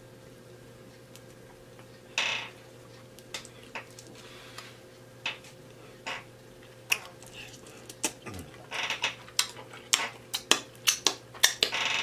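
Close-up eating sounds: a short wet squish about two seconds in as food is pulled apart by hand, then scattered clicks. From about eight seconds on these grow into a quick run of lip-smacking and chewing clicks.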